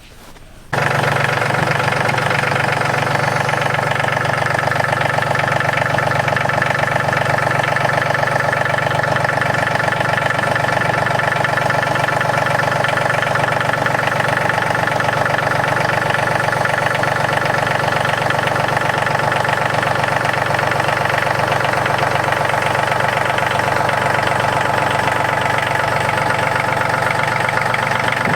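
Yanmar YT235 compact tractor's diesel engine running at a steady speed, coming in abruptly about a second in and holding an even pitch throughout.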